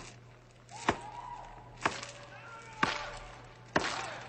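Five sharp hits, evenly spaced about a second apart, each dying away quickly, with faint pitched sounds between them.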